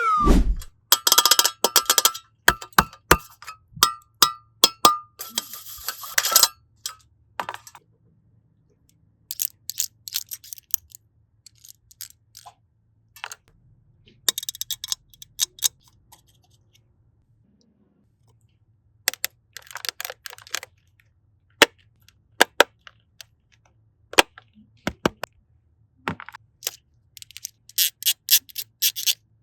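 Small hard plastic and candy pieces clicking and clinking in scattered bursts, with stretches of dense crackling and a few quieter pauses between.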